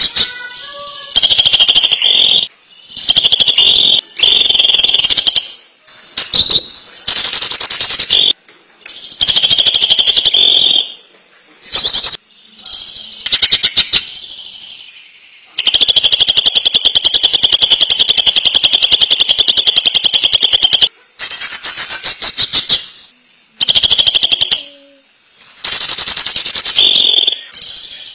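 Greater green leafbird (cucak ijo) singing in bouts of very fast, rattling trills, the 'ngentrok' delivery prized by bird keepers; the longest bout runs about five seconds from the middle.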